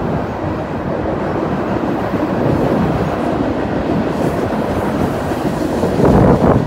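Freight train cars rolling along the track, a steady rumble and rattle that swells briefly louder near the end.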